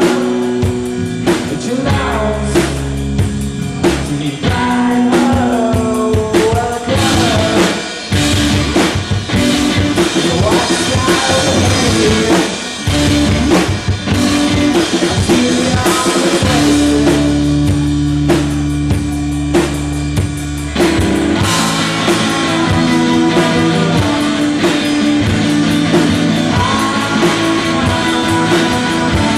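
Live rock band playing: electric guitar, electric bass and drum kit, with melody lines over a dense drum beat.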